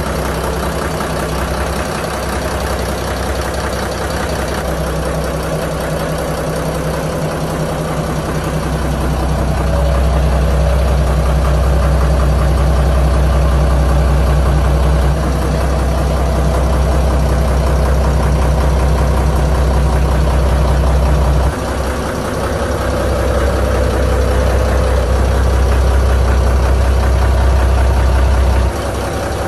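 Yanmar 6PHT turbocharged six-cylinder marine diesel running steadily, heard close up in the engine compartment. It grows louder about a third of the way in and dips abruptly twice later on.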